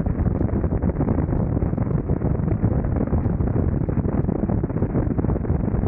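Wind buffeting the microphone of a camera on a motorcycle cruising at highway speed, about 67 mph: a steady, rough, fluttering rush with no distinct events.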